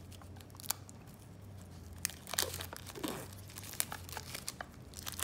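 Clear plastic wrapping being torn and peeled off a small metal tarot tin and crumpled in the hands: scattered crinkles and crackles, busiest from about two seconds in.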